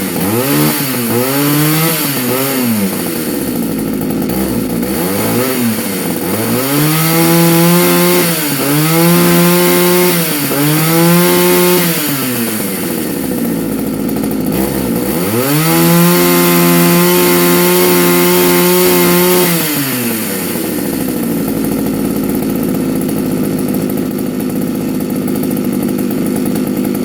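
Pioneer P38 two-stroke chainsaw engine revved up and back down several times, then held at high revs for about four seconds before dropping back to a steady idle. It revs up again near the end.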